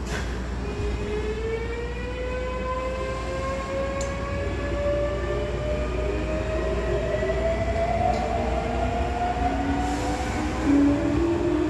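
Toei 6300 series subway train heard from on board: its electric traction motors whine with a cluster of tones that rise slowly in pitch over the wheel-and-track rumble as the train gathers speed. A louder, lower tone joins near the end.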